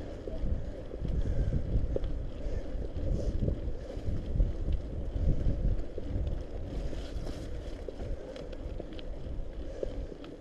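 Mountain bike riding over a wet, slushy gravel trail: a steady low rumble of wind buffeting the microphone and tyres rolling, with scattered small clicks and rattles from the bike.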